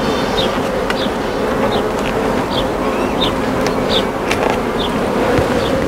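Honeybees buzzing in a steady drone from an opened hive during a colony inspection. Over it, a short high chirp repeats about every second.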